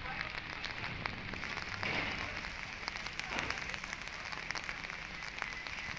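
Rain falling steadily, a patter of many small drops ticking close by.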